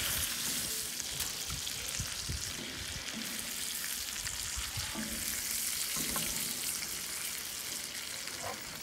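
Grey mullet sizzling in oil and butter in an aluminium fish barbecue pan over hot briquettes: a steady frying hiss, with occasional faint knocks as a spatula works under the fish to turn it.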